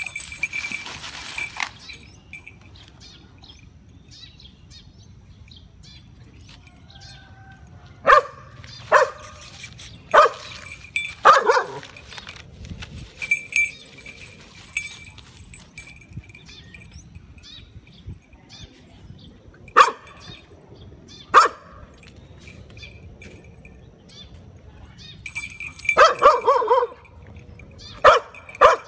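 Dog barking at a cat in short, sharp single barks: a run of about five a few seconds in, two more midway, and a quick volley near the end.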